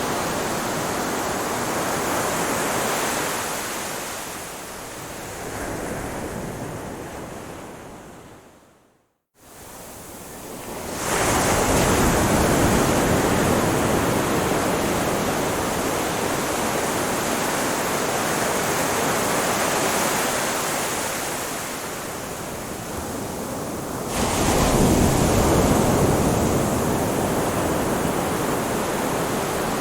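Ocean waves washing onto a shore, a steady rushing surf that swells as waves break about eleven seconds in and again near twenty-four seconds. About nine seconds in, the sound fades briefly to silence and then comes back.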